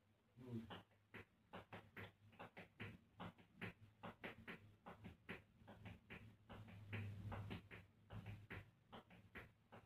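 Tap shoes striking a tiled floor in hoofing rhythms: a rapid, uneven patter of sharp taps, several a second, busiest about seven seconds in.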